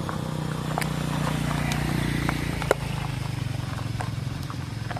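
A Toyota Land Cruiser 80 Series engine running steadily at low revs close by, a low even hum that grows a little louder in the middle, with light ticks and one sharp click about two and a half seconds in.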